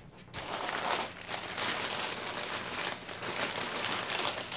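Crumpled sheets of white packing paper rustling and crinkling in irregular handfuls as they are pulled apart by hand.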